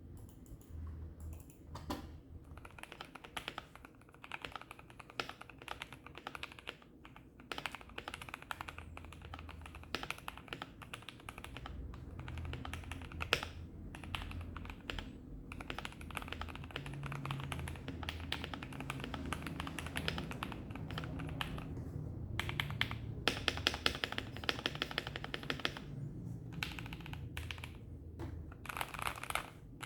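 Typing on an Akko ACR75 mechanical keyboard with lubed JWK Yellow linear switches, a masking-tape-modded PCB and EVA foam: a steady stream of keystrokes with a few short pauses, coming faster and louder about three quarters of the way through.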